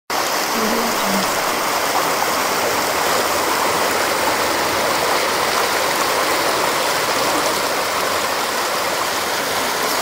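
Wild river flowing: a steady, dense rush of water that starts abruptly at the very beginning.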